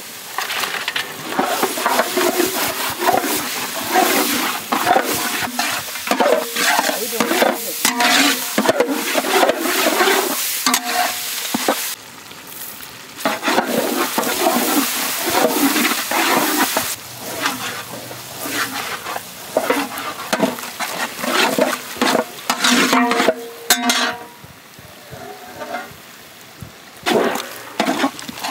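Mutton and masala frying in ghee in a large pan, stirred and scraped with a wooden paddle: repeated scraping strokes over a sizzle. The stirring pauses briefly about halfway and becomes quieter and sparser near the end.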